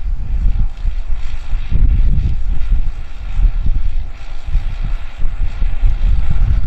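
New Holland TD100D tractor's diesel engine running under load while pulling a tillage implement across a ploughed field, heard at a distance. A heavy, gusty rumble of wind on the microphone is louder than the engine.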